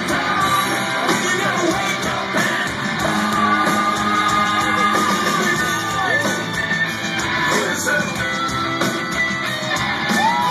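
Live hard-rock band playing loudly: distorted electric guitars, bass and drums with crashing cymbals, and a voice singing or yelling over the band.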